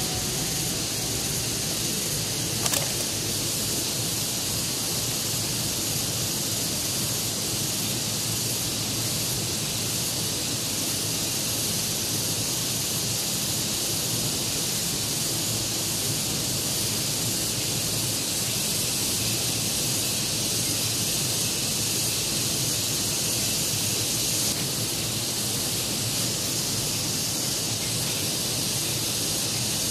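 Steady rush of flowing river water, an even hiss, with a single brief click nearly three seconds in.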